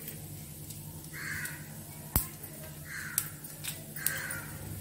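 A crow cawing three times, each caw about half a second long. A single sharp click falls between the first and second caws.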